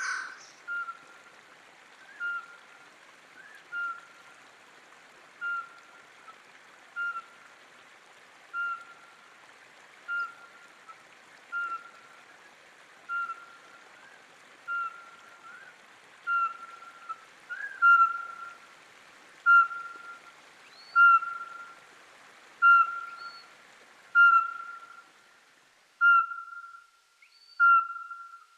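A short electronic ping on one steady pitch, repeating about every one and a half seconds and growing louder about two-thirds of the way through, over the steady rush of flowing river water, which drops away near the end.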